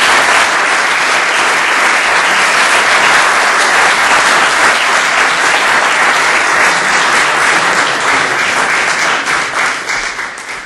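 Audience applauding steadily, thinning to more separate claps and fading away near the end.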